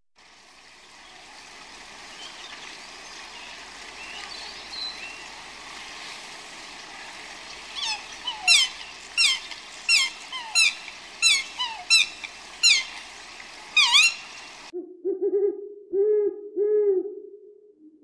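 A string of about ten high whistled bird calls, each sweeping quickly downward, over a steady outdoor hiss. Then, after a sudden cut, a white-faced owl gives three low, quavering hoots.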